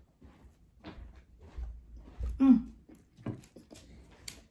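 Quiet chewing and mouth sounds of someone eating a soft, buttery biscuit, a few small smacks and clicks, with a short hummed "mm" about two and a half seconds in.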